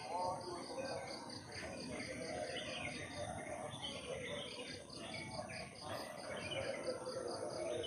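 Insect, cricket-like, chirping in an even high-pitched pulse of about four chirps a second, with a short break in the middle. Scattered bird calls sound behind it.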